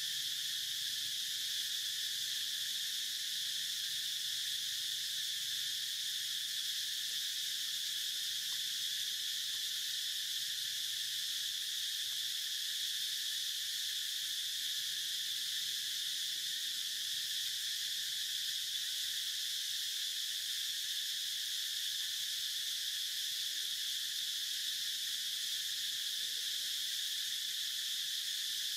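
Steady, high-pitched drone of a chorus of insects, unchanging in pitch and level.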